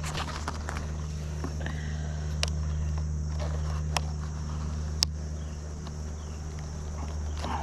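Open beehive being worked: a steady low hum with three sharp clicks of hive parts being handled.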